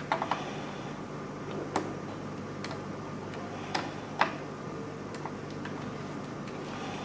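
A few sharp, irregular metal clicks from an 8mm spanner working the fastener on a bicycle brake-cable clamp, over a steady low hum.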